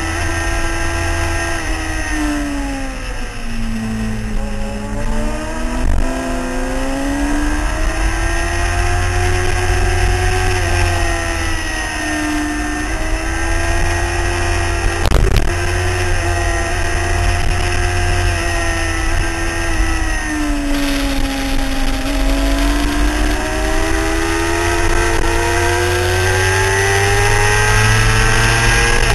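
Motorcycle engine at speed on a race track, heard onboard: the revs drop several times, as for braking into corners, and climb again under throttle, with a long rising pull near the end. Wind rumbles on the microphone throughout, and there is a single sharp knock about halfway.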